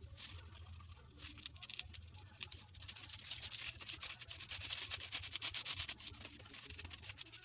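Toothbrush scrubbing a greasy motorcycle drive chain, rapid scratchy strokes that grow busier and louder partway through, loosening caked-on grime after a soak in cleaner.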